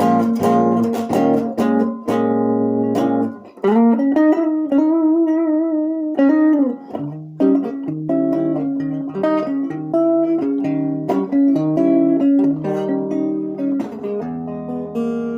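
1960 Guild T100 electric guitar played clean through a valve amp, chords and single notes. About four seconds in, a held chord wavers in pitch with vibrato for a couple of seconds.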